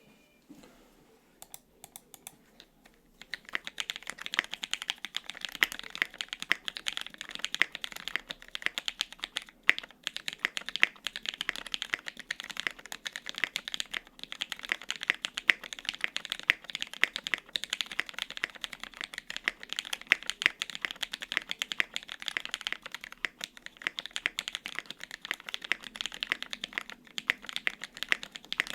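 Typing on a gasket-mount 75% mechanical keyboard with lubed and filmed Hyperglide Cherry MX Black linear switches, double-shot ABS keycaps and an aluminum plate. A few single keystrokes, then steady fast typing from about three seconds in.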